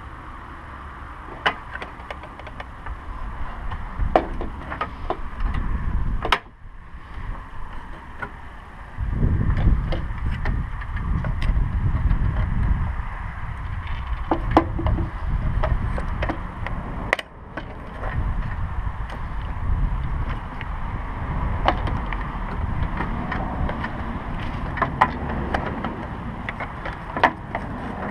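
Plastic turn signal housing being handled and pushed at its mounting: scattered clicks and knocks of hard plastic. A low rumble comes and goes through the middle.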